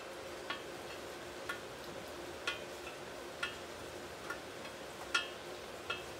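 Light metallic ticks with a short ring, about one a second and unevenly spaced, from a freshly stick-welded thin galvanized steel joint, over a steady low hum.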